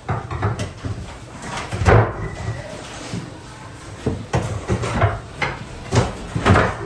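Wooden kitchen cabinetry being knocked and pried loose during demolition: a series of irregular knocks and bangs, the loudest about two seconds in and another cluster near the end.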